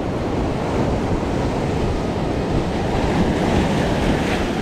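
Ocean surf breaking and washing over shoreline rocks, with wind buffeting the microphone. A wave splashes up against the rock about four seconds in.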